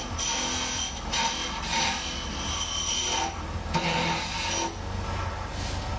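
Wood lathe running while a hand-held turning tool cuts a spinning wooden pen blank. The cutting comes in several passes, with brief breaks about one second and about three and a half seconds in, over the steady hum of the lathe motor.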